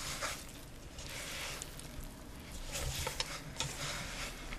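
A hand mixing crumbly flour dough with warm water in a stainless steel bowl: irregular squishing and scraping strokes, with a few light clicks around three seconds in.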